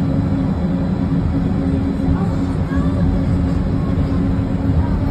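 Steady low running rumble and hum inside a moving elevated train car, with a few faint short squeals.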